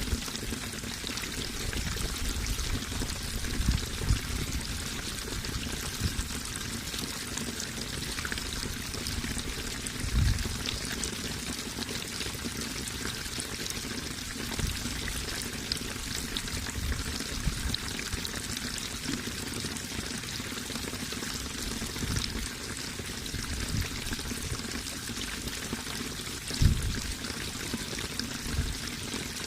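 Running water flowing steadily with a constant splashing hiss, and a few brief low thuds.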